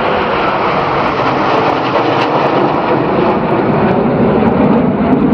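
Military jet aircraft flying overhead: a loud, steady rush of jet-engine noise that builds slightly toward the end.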